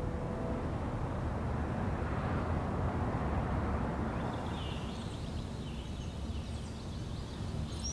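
Outdoor ambience: a low, steady rumble that swells and fades over the first few seconds, then small birds chirping from about four seconds in.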